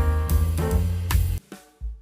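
Background music with drums, bass and sustained keyboard-like notes, breaking off briefly about one and a half seconds in.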